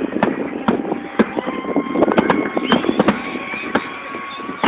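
Fireworks going off: many sharp pops and crackles in quick succession, with a few long, steady whistling tones over them and the hubbub of a crowd.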